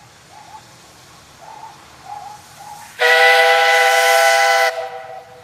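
Steam whistle of a DSB class F tank locomotive, blown once about three seconds in: a loud, steady, several-toned blast with steam hiss that lasts about a second and a half and cuts off sharply. It is sounded as the locomotive approaches a level crossing, as a warning.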